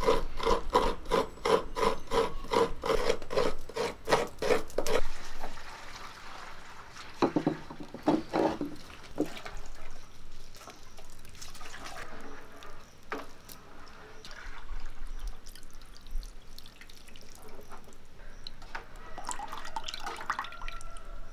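Rhythmic scraping of fresh coconut on a grater, about three strokes a second for the first five seconds. Then come softer squishing sounds as the grated coconut is squeezed by hand, and near the end coconut milk trickles and splashes into a pot.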